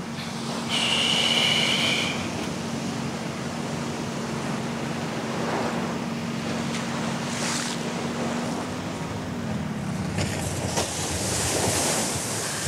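Small boat's motor running steadily over the wash of water and waves, its hum dropping in pitch about nine seconds in as it slows. A brief high-pitched tone sounds about a second in.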